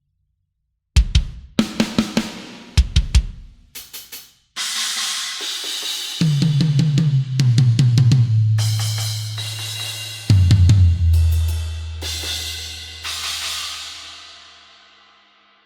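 Sampled acoustic drum kit from the EZdrummer 3 Death Metal EZX library: after a second of silence, a run of sharp snare and kick hits, then crashing cymbals with low toms ringing out, ending on a big hit whose cymbal wash dies away near the end.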